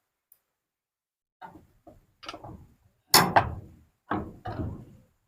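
A run of irregular knocks and clattering from parts and tools being handled during the light fitting's installation, starting about a second and a half in, with the loudest knock a little after three seconds.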